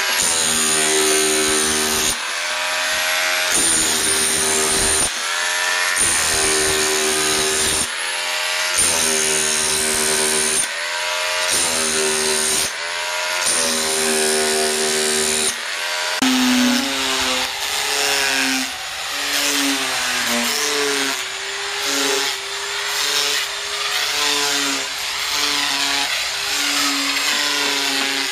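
Corded electric drill with a long bit boring into a wooden log, run in repeated bursts of a second or two with short pauses, its motor whining up at the start of each burst. About halfway through, a different power tool takes over on the wood, running more continuously with a wavering, choppy sound.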